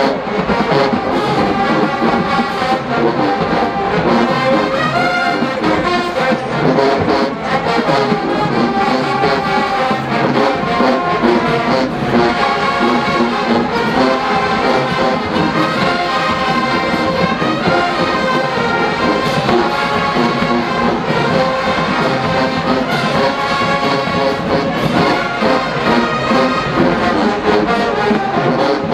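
College marching band playing loudly, its brass section of trombones and trumpets to the fore over steady drumline percussion.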